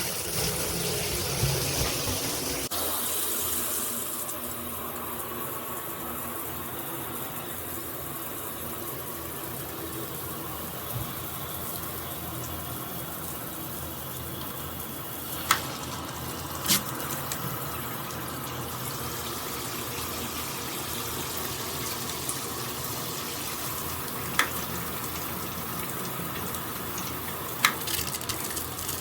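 Water spraying steadily from a dual rainfall and handheld shower head, a continuous hiss whose tone shifts a few seconds in. A few sharp single clicks sound now and then in the second half.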